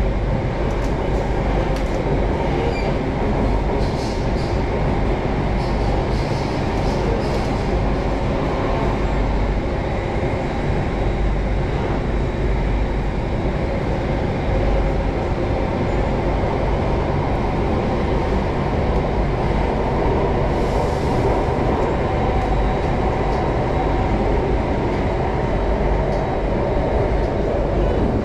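Singapore MRT train running steadily, heard from inside the carriage: a continuous rumble of wheels on rail and running gear, with a few light clicks in the first several seconds.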